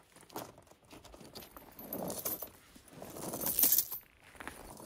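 Metal tools and small metal parts clinking and rattling as they are handled, in irregular bursts, loudest about two-thirds of the way through.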